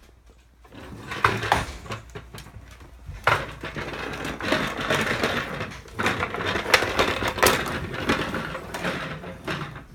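Plastic telephone pull toy clattering as it is dragged by its string across a hardwood floor, its wheels and parts rattling unevenly. It starts about a second in and keeps going.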